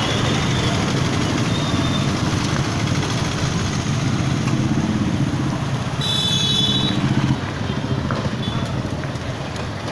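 Motorcycle engine idling steadily, with a brief high-pitched tone about six seconds in and the level dropping slightly soon after.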